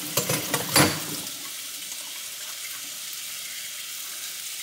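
A few quick clinks and clatters of kitchen utensils in the first second, over a steady sizzle of food frying in a pan on the stove.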